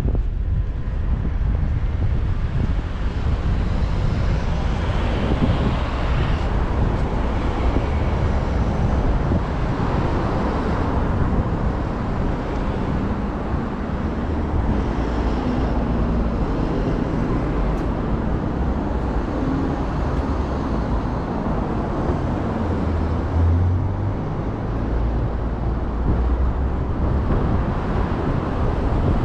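Steady street traffic noise from passing cars, with a low wind rumble on the microphone.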